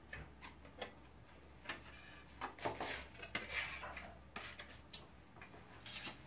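Faint, scattered light clicks and a few brief scrapes from hand tools being handled, a putty knife among them.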